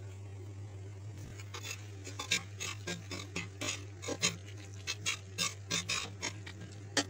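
Cooking spoon scraping and knocking against a pan while stirring macaroni with sauce: an irregular run of clicks, about three a second, the sharpest near the end, over a steady low hum.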